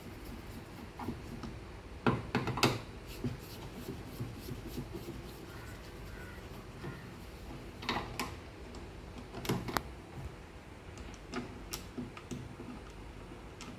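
Scattered clicks and knocks of hand tools and plastic panel parts being handled while screws are taken out of a washing machine's top, a few sharp knocks standing out among quieter ticks.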